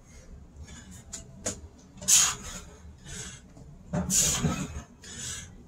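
Heavy, puffing breaths of a man working through burpees with push-ups, several hard exhalations about a second apart. A couple of sharp knocks come about a second in, as hands and body meet the concrete floor.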